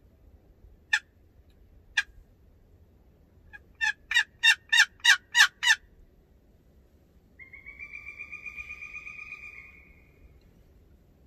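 Turkey calls: two single sharp clucks about a second apart, then a quick run of about seven evenly spaced yelps, then a drawn-out steady call lasting a couple of seconds.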